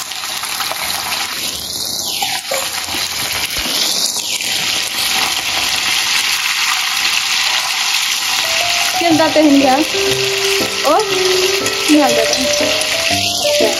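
Buffalo meat deep-frying in hot oil in an iron wok: a steady, loud sizzle, stirred with a wire-mesh strainer. Background music comes in about two-thirds of the way through.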